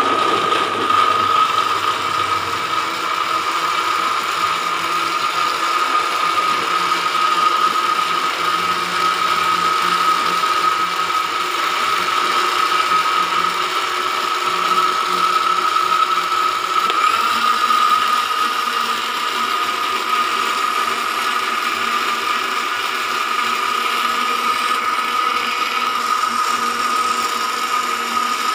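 Electric kitchen blender running continuously, a loud steady motor whine. About seventeen seconds in, its pitch steps up slightly.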